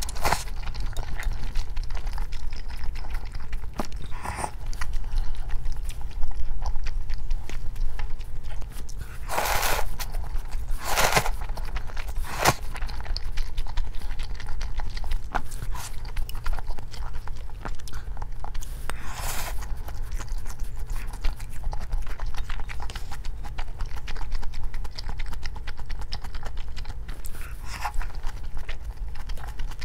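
Close-miked eating: a person chewing and biting food, with a few sharp crunches standing out, over a steady low hum.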